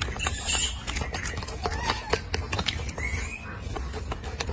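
A few short, high calls that rise and fall in pitch, one clearest about three seconds in, over a steady low rumble with scattered clicks.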